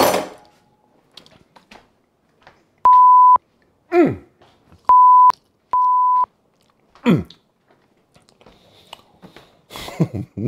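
Three short, steady, high censor bleeps, with two brief vocal cries falling sharply in pitch between them, then small chewing clicks near the end.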